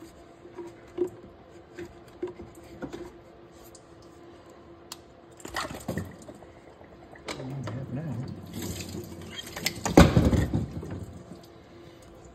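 Hands working a coolant-wet rubber radiator hose onto the thermostat housing of a supercharged 5.7 HEMI: a few light clicks, then wet rubbing and squelching as the hose is pushed on and clamped, loudest about ten seconds in.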